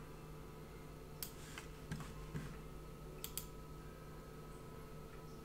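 A few computer mouse clicks, including a quick double click about three seconds in, over a faint steady hum.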